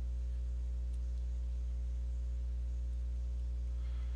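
Steady low electrical mains hum with a row of higher overtones, unchanging in level; a faint soft sound near the end.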